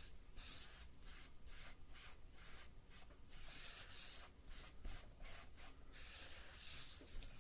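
Sponge loaded with soft chalk pastel rubbed back and forth across paper: a faint, repeated hiss of strokes, about two a second, as the pastel is worked into a background layer.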